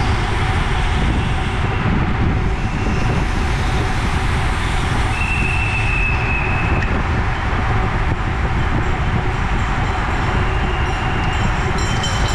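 Wind rushing over the microphone and tyres running on asphalt as a pack of road bikes rides at speed. A brief high steady tone sounds about five seconds in, lasting about a second and a half.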